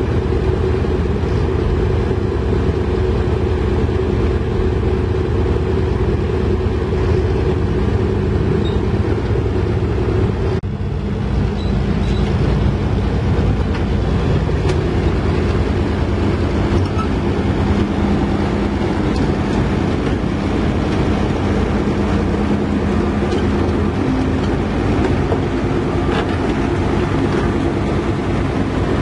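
Heavy diesel engine running steadily under load, with a brief dip about ten seconds in.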